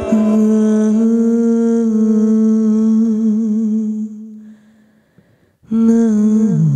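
A woman's voice humming long held notes into a microphone. It fades away about four seconds in, breaks off briefly, then starts again and slides down to a lower note near the end.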